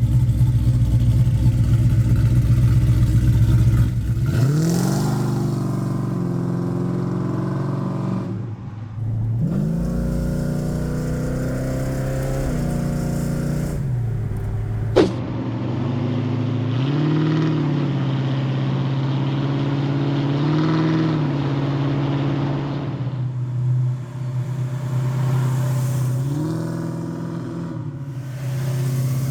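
Ford XE Fairmont Ghia's 5.8-litre V8 running and being revved: a heavy low rumble at first, then the engine note rises and falls back in repeated blips, about five times. A single sharp click sounds about fifteen seconds in.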